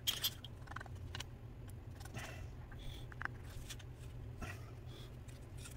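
Faint handling noises: scattered light clicks and soft scrapes, over a low steady hum.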